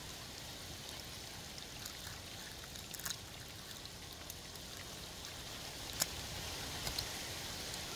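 Fingers handling a broken eggshell and a small crab, giving a few light clicks and taps, over a faint steady hiss of background noise.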